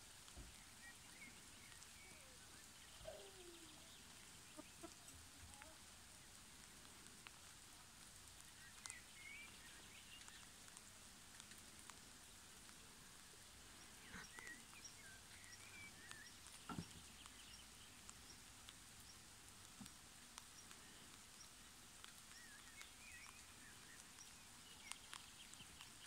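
Near silence: faint outdoor ambience with scattered distant bird chirps and a few small clicks.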